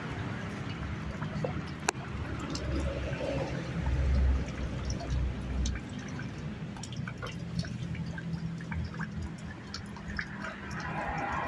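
Water dripping and trickling from a tap, with scattered small ticks over a steady low hum.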